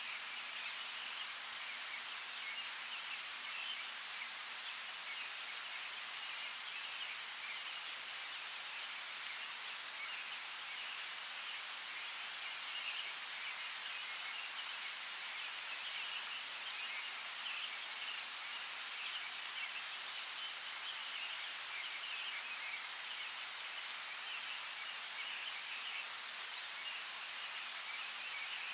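Steady rain falling, with a few sharper drip clicks, and small birds chirping in a continuous speckle of short high notes.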